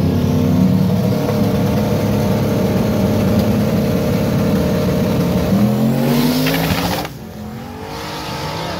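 Car engine at high revs under hard acceleration, climbing in pitch. About six seconds in there is a brief hiss, then a sudden drop in pitch and level as it shifts gear, and it starts climbing again.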